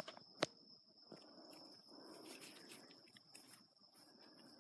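Faint steady high-pitched insect trill in woodland, with two sharp clicks near the start and a soft rustle about two seconds in.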